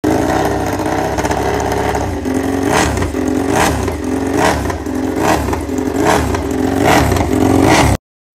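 Honda RC213V MotoGP bike's V4 engine running on its stand, steady at first, then blipped up and back down about seven times, roughly once a second. It cuts off suddenly near the end.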